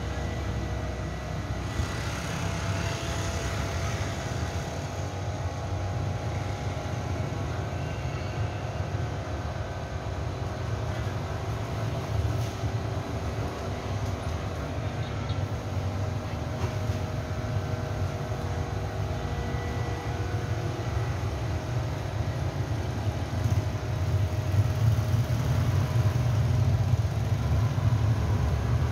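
Steady low rumble of outdoor background noise with a few faint steady tones above it, growing somewhat louder about three quarters of the way through.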